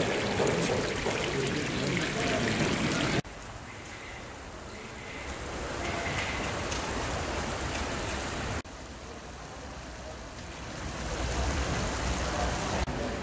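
Plov broth (zirvak) of carrots, chickpeas and raisins simmering in a giant kazan before the rice goes in: a steady, watery hiss that drops abruptly in level twice.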